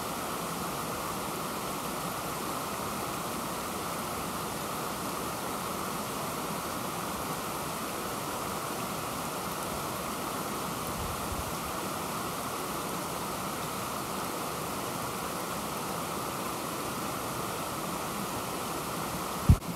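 A mountain stream rushing steadily over boulders and small cascades. A short, sharp thump sounds near the end.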